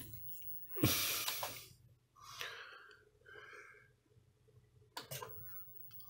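Faint breathing and soft clicks about five seconds in as buttons on a rear-projection TV's front control panel are pressed.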